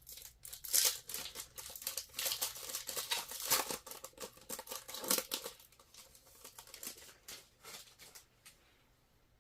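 Wrapper of a trading card pack being torn open and crinkled by hand, a run of irregular rustles and tearing snaps that die away near the end.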